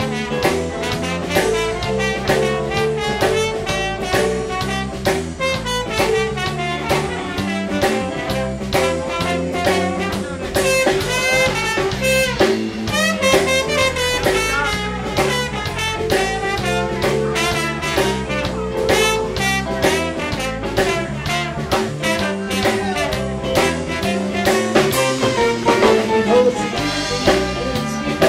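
Live blues band playing an instrumental passage, with a drum kit keeping a steady beat under sustained melodic instrument lines.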